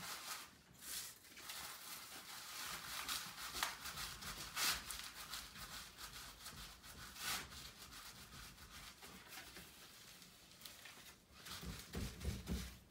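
Hands rolling chopped tobacco leaf (picadura) inside a whole leaf into a short-filler cigar bunch: dry leaf rustling and rubbing, irregular, with a few dull bumps near the end.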